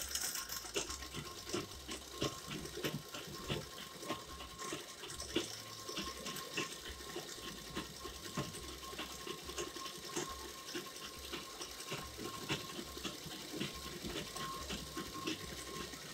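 Cotton fabric rustling and crumpling as elastic is pulled through a sleeve casing by hand to gather it, with many irregular light scrapes and taps. A faint steady thin tone runs underneath.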